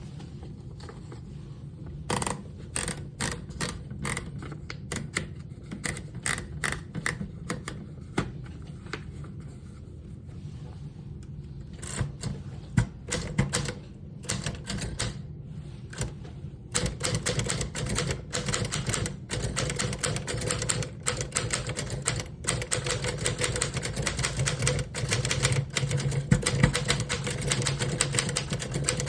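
1931 Royal No. 10 manual typewriter being typed on: keystrokes slow and spaced out at first, then fast and continuous from a little past the halfway point.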